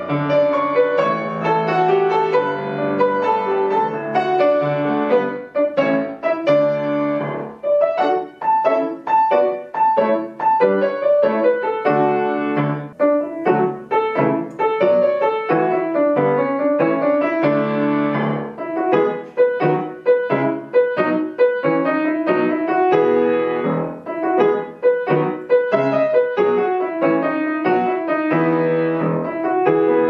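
Solo grand piano played with both hands, a flowing piece of many quick notes that swells and eases phrase by phrase.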